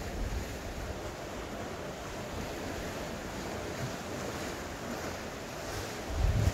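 Strong wind blowing over the microphone above sea waves washing against a rocky shore. A heavy gust buffets the microphone near the end.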